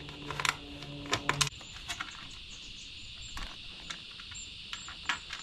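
Small metal clicks and taps of washers and nuts being fitted onto bolts on a 12-volt box panel. A low hum runs for the first second and a half, then cuts off. Insects drone steadily and birds chirp in the background.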